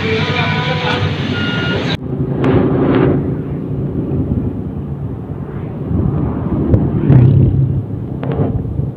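About two seconds of steady electronic tones that change pitch, then an abrupt change to a Rusi DL 150 motorcycle's engine running on the road with wind noise on the microphone.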